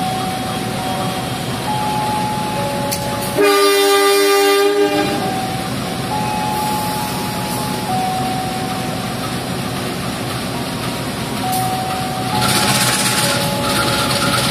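Diesel locomotive sounding one loud horn blast, about a second and a half long, some three and a half seconds in, over the steady rumble of the train. The rumble grows louder near the end.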